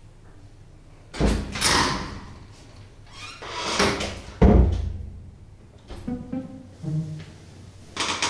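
A door banging shut, the loudest bang about four and a half seconds in, after two shorter loud rushes of noise, with background music.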